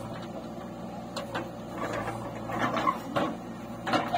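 A JCB 3DX backhoe loader's diesel engine running steadily while the backhoe arm works, with several sharp knocks about a second in, around three seconds in and near the end.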